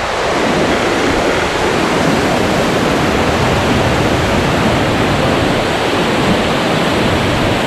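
Waterfall: a loud, steady rush of falling water, even and unbroken throughout.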